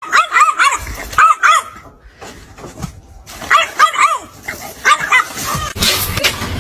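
Puppy yipping in quick runs of short, high yelps that rise and fall, in three bouts.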